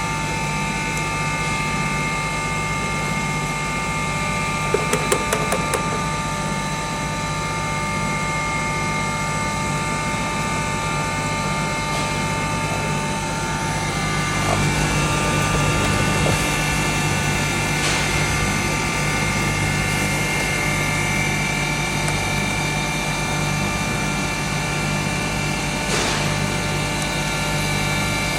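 A 2 HP turmeric grinding machine running steadily while grinding turmeric: a dense whine of several steady tones over a low hum. A few quick clicks come about five seconds in, and the tones shift a little about halfway through.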